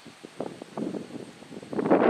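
Wind buffeting the microphone in uneven gusts, the strongest gust near the end.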